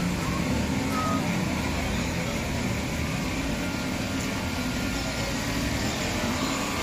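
Steady engine hum, even and unbroken, with most of its weight low down.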